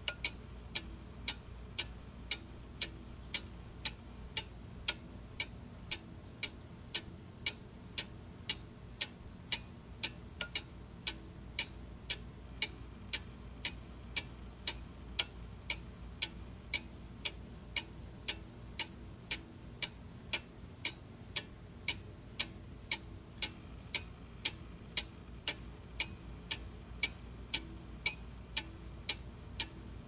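Steady mechanical ticking, about two sharp, evenly spaced ticks a second.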